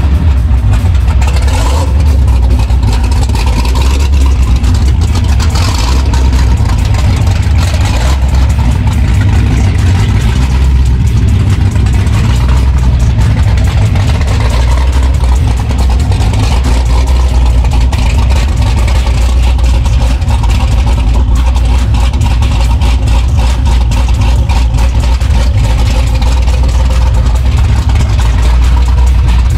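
Cammed, supercharged 427 cubic-inch LSX V8 running loud and steady at idle.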